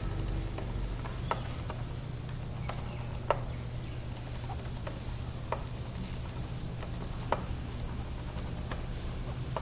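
Rear wheel turning with a sharp click about every two seconds and fainter ticks between, over a steady low hum: the abnormal noise from the rotating rear wheel.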